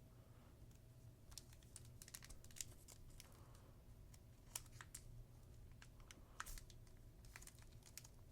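Faint clicks and crinkles of a foil Pokémon card booster pack being cut open and handled, scattered irregularly throughout.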